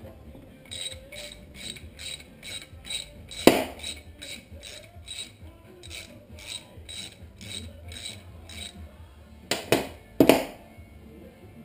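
Hand socket ratchet clicking in a steady run of strokes, about two or three a second, turning a bolt. Three louder metallic knocks stand out, one about three and a half seconds in and two close together near the end.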